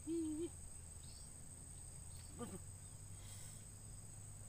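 Insects chirring steadily at a high pitch. A short hummed voice sound comes at the very start, and a brief falling call about halfway through.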